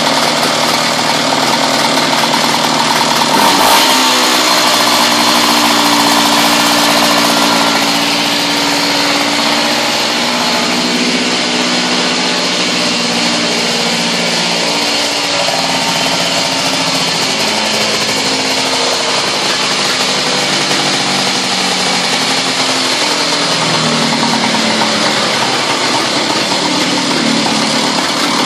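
OMC engine running unevenly, its speed wandering up and down, on its first run in 30 years.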